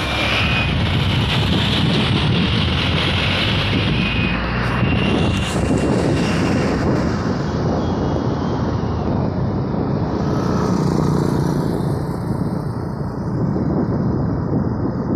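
Motorcycle riding along a road: steady wind rumble on the microphone over the running engine and tyre noise.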